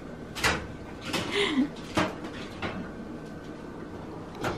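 Foil-wrapped potatoes and corn being taken out of an electric oven: a handful of separate light knocks and clatters from the metal oven rack and the food, then the oven door being shut near the end.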